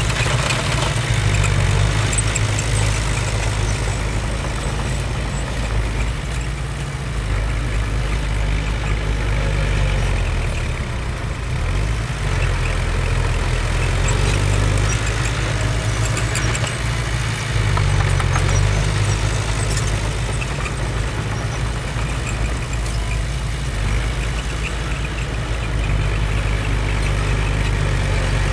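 Bulldozer's diesel engine running steadily with a deep note, which shifts in pitch a few times.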